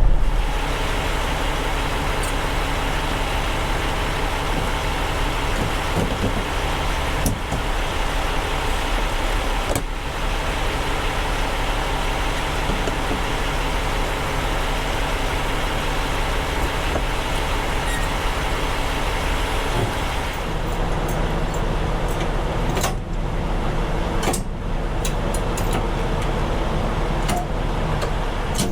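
Semi-truck's diesel engine running steadily, heard from inside the cab, with a low rumble; its pitch shifts about two-thirds of the way through.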